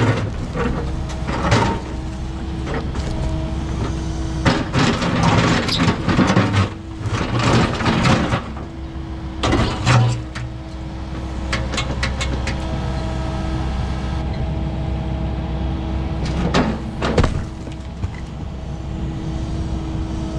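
Kubota KX080 excavator's diesel engine running steadily under load while its bucket breaks up heavy concrete footings, with repeated cracks, knocks and crunches of concrete in clusters.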